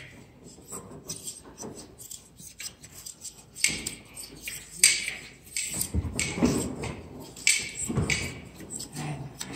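Hand blade shears snipping through an Angora goat's mohair fleece in short, irregular cuts, coming thicker and louder from about three and a half seconds in.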